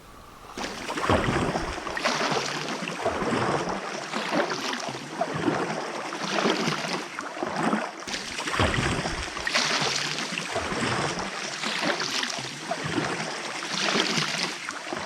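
Canoe paddle strokes swishing and splashing through lake water, a surge about every two seconds, with wind buffeting the microphone.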